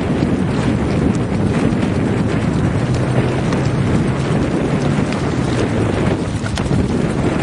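Wind buffeting the microphone in a steady, heavy rush, with a faint low hum for a couple of seconds in the middle.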